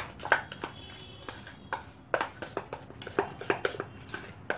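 A utensil tapping and scraping against a stainless steel bowl in irregular clinks, a few a second, while whipped cream is stirred together with red food colour.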